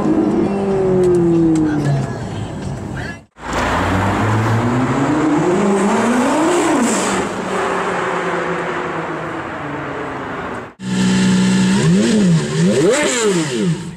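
High-revving supercar engines in three quick clips: first one falling in pitch as it backs off, then one climbing hard to a peak about six and a half seconds in and dropping away, then a stationary car revved in several quick blips near the end.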